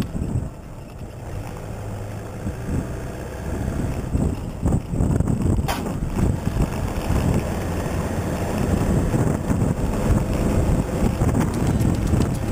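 Toyota Hilux 4x4 driving a rough off-road track: steady low rumble of the vehicle with wind buffeting the microphone, and one sharp knock about six seconds in.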